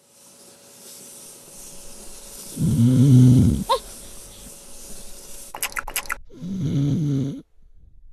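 Cartoon-style snoring: two loud snores about four seconds apart. The first is followed by a quick rising whistle, and a brief rapid flutter comes before the second.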